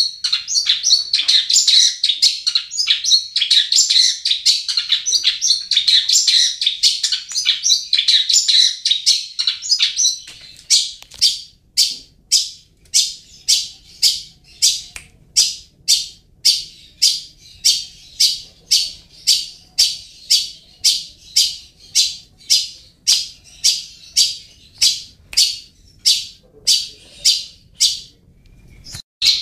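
Long-tailed shrike (cendet) singing. For about ten seconds it gives a dense, rapid, high-pitched chattering warble, then switches to a steady run of short sharp calls, about two a second, with a brief pause near the end.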